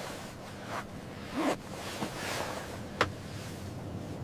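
Steady rushing wind noise, swelling briefly about one and a half seconds in, with a single sharp click about three seconds in.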